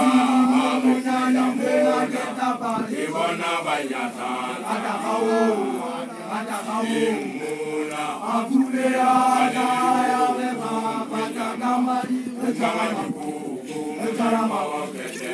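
A man chanting in long phrases held on a level pitch, with short breaks between them.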